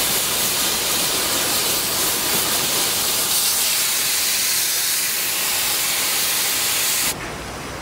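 Oxy-fuel cutting torch hissing steadily as it burns through a steel pipe. The hiss stops abruptly a little before the end.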